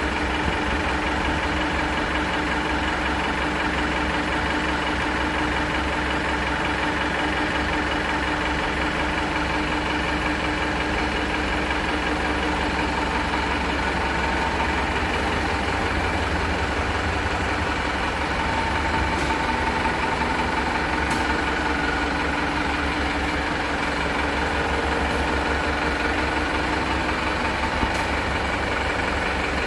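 Tata 407 light truck's diesel engine idling steadily, with a few faint clicks late on.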